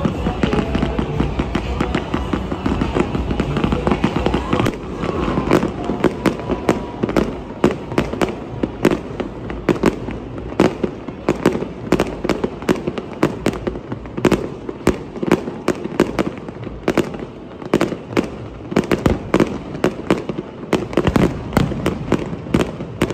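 Aerial fireworks shells bursting over water in a continuous volley. For the first few seconds the bangs run together in a dense barrage, then they come as many separate sharp bangs and crackles at irregular intervals.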